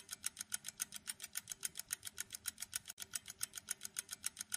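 Countdown timer sound effect: fast, evenly spaced ticking, about seven ticks a second, fairly faint.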